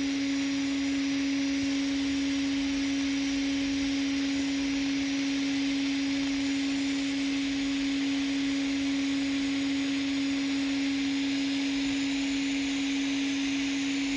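TIG (GTAW) welding arc running on carbon steel pipe at 160 amps during a fill pass: a steady hiss with a constant hum held at one pitch, unbroken throughout.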